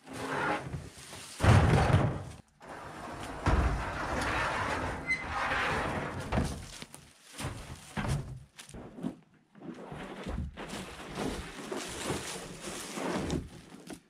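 An empty IBC tote, a plastic tank in a steel cage, tipped off a trailer and dropped onto the ground. Heavy thuds come about a second and a half in and again near three and a half seconds, followed by irregular knocking, scraping and rattling of the cage and hollow plastic as it is set upright and handled.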